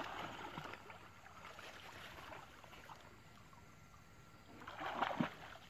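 Pond water sloshing and splashing around people wading through it, quieter in the middle, with a louder cluster of splashes about five seconds in.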